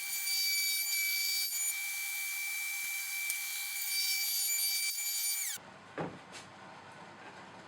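Router running with a steady high whine as its bit cuts a through slot in plywood, then switched off about five and a half seconds in, the pitch falling as it spins down. A few light knocks follow.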